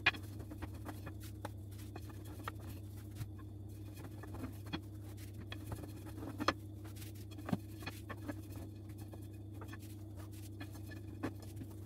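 Light taps, scrapes and rustles of hands handling rolled-out pizza dough and a wooden rolling pin on a granite countertop, over a steady low hum. The clearest taps come about six and a half and seven and a half seconds in.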